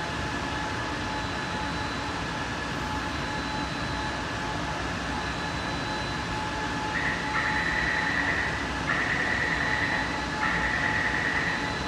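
Taipei Metro Circular Line train standing at the platform, its equipment giving a steady hum with thin steady tones. From about seven seconds in, a high tone sounds in repeated stretches of about a second and a half each.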